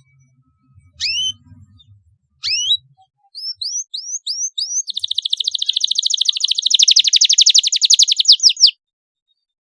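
Domestic canary singing: two single upward-sweeping chirps, then a quickening run of rising notes that breaks into a fast, even trill and stops abruptly near the end.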